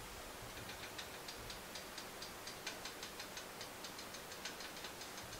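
Faint, irregular ticking from a stock pot of chowder on an electric coil burner, about three or four ticks a second, starting about half a second in, as the heat is turned up to bring it to a boil.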